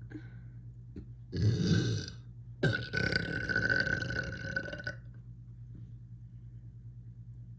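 A person burping loudly twice: a short burp a little over a second in, then a longer one of about two seconds that holds a steady pitch.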